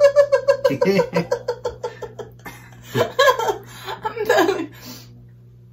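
A woman laughing hard. First comes a long run of rapid, high-pitched "ha-ha" pulses, then two shorter bursts of laughter about three and four seconds in, and it stops about five seconds in.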